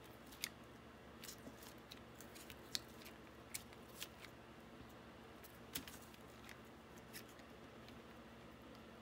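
Faint tabletop handling while printing with rubber-band-wrapped stamps: several short, sharp clicks and light taps, scattered and uneven, as the stamp is pressed onto paper and the block is handled in the paint.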